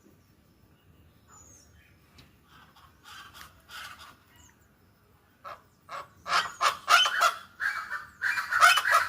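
Geese honking: a few faint calls at first, then from a little past halfway loud, rapid, repeated honks that keep going.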